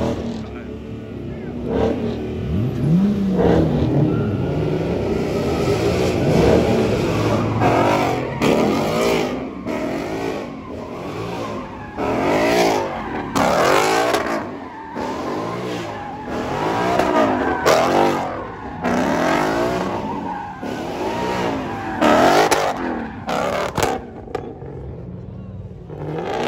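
Cars doing burnouts and donuts: engines revved hard again and again, the pitch rising and falling every second or two, over tire squeal, with crowd voices shouting.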